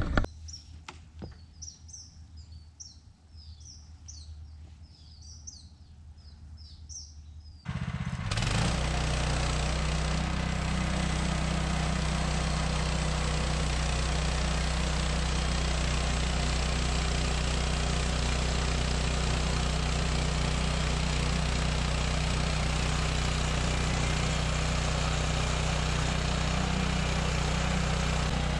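Birds chirping in quiet surroundings. About eight seconds in, the 14 hp engine of a Woodland Mills HM126 portable bandsaw mill starts suddenly, rises for a moment, then runs loud and steady.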